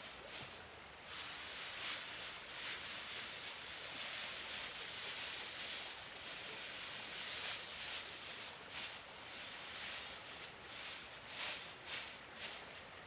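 Dry grass rustling and crackling as handfuls are dropped and spread by hand over a lattice of thin bamboo strips, in uneven crackly swells.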